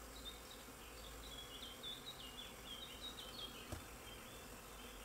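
Honeybees buzzing faintly around their hives, with a quick run of short, high chirps over the first three seconds and a single click a little before the end.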